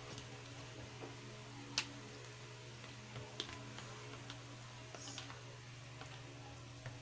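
A plastic fork stirring instant noodles in a cup, with scattered light clicks and taps of the fork against the cup. One sharp click about two seconds in, and a short rustle about five seconds in.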